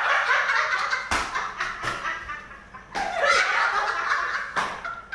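Several people laughing in two spells, with a few sharp clicks in between.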